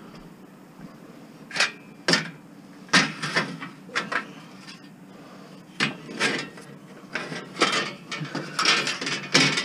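A string of irregular knocks and clatters from hard objects being handled and set down, as scrap items are sorted from curbside garbage.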